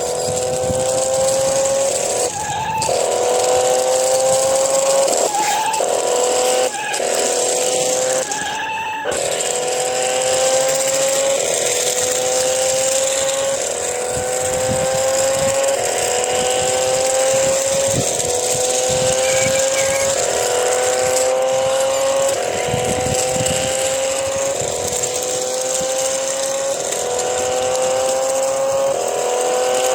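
Race-car engine sound effect looping: a pitched engine note rises steadily, drops back and rises again about every two seconds, like an accelerating car changing gears, with a few brief breaks in the first nine seconds.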